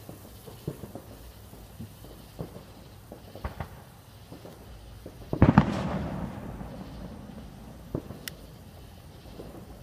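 Small ground fireworks on pavement going off with scattered sharp pops, then one much louder bang about halfway through whose noise fades away over a second or two.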